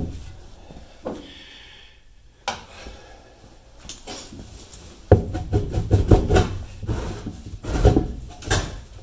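Rusted metal fuel filler neck tube being twisted and worked loose from the car body, clunking and scraping: a few isolated knocks at first, then a steady run of clattering and rubbing from about halfway through.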